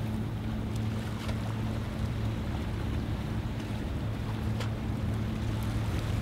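Newton custom dive boat running past at speed: its engine gives a steady low drone under the rushing of water along the hull and bow wave.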